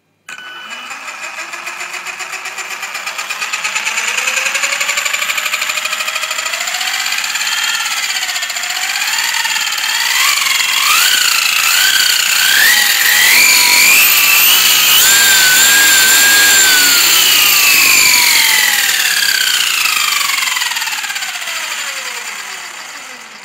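Brushless electric motor of a large RC truck spinning its gear train and wheels with no load: a whine that climbs in pitch in wavering steps as the throttle is worked up, holds at a high pitch, then slides smoothly down as the wheels spin down. It is spinning quite fast; the truck is highly geared.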